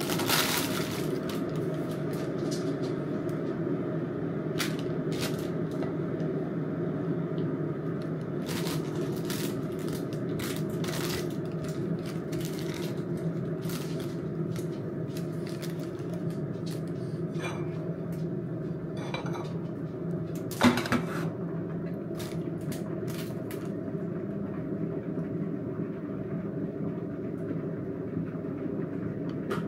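Baking paper crinkling as it is peeled back from a loaf cake, with a knife tapping and clinking against the plate as the cake is sliced, and one louder clatter about 21 seconds in. A steady low hum runs underneath.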